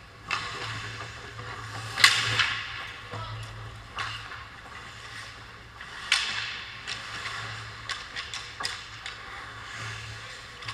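Ice hockey play: skate blades scraping and cutting the ice, with clacks of sticks and puck throughout. A sharp crack about two seconds in is the loudest sound, and another comes about six seconds in.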